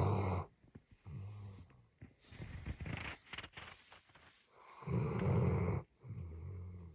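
Dalmatian snoring in its sleep: a run of rough snoring breaths, several with a low buzzing rattle, the loudest about five seconds in.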